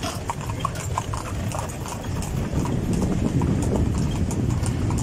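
Two carriage horses' hooves clip-clopping on an asphalt road in an even beat, about three strikes a second, as they pull the carriage. A low rumble runs beneath and grows louder from about halfway.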